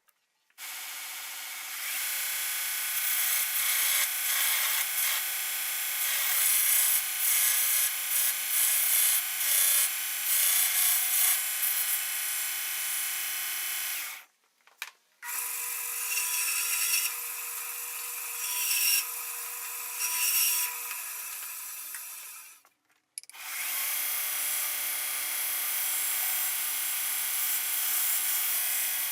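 Electric power tool working wood: a steady motor hum under a loud abrasive grinding noise. It stops abruptly twice and starts again.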